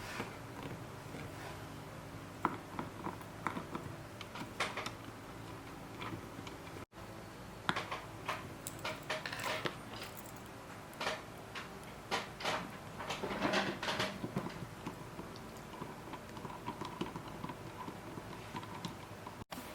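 Small, scattered clicks, taps and scrapes of a Torx screwdriver turning small screws and plastic case parts being handled during reassembly of a wireless microphone transmitter, busiest in the middle.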